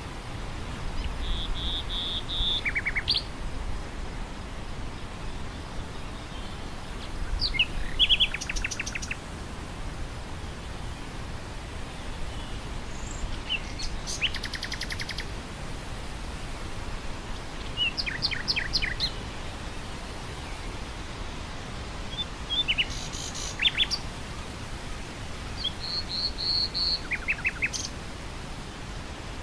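Nightingale singing in separate phrases a few seconds apart, each a rapid run of repeated notes mixed with short held whistles, about six phrases in all. Steady wind through grass runs underneath.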